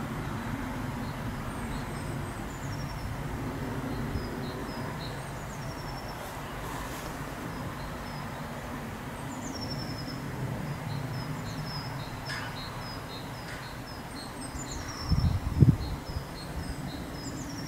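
A small songbird singing high, short phrases, each a falling note followed by a row of quick short notes, repeated every few seconds over a steady low outdoor rumble. A few loud low bumps come about fifteen seconds in.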